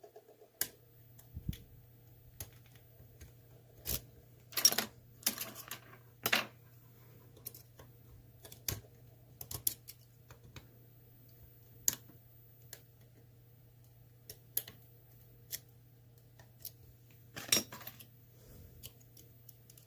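Lock picks clicking and scraping against the pins inside an ASSA Twin Combi pin-tumbler lock, in scattered light ticks and a few short scratchy strokes as the picker works the spool pins.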